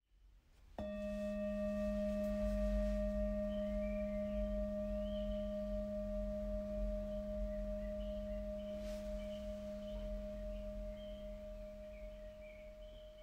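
A singing bowl struck once about a second in, its low hum and higher overtones ringing on and slowly fading. Faint high chirps sound over it.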